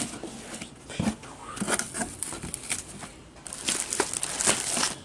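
Packaging rustling and crinkling in irregular bursts as the contents of a ceiling fan box are handled and pulled out. The crinkling is thickest near the end.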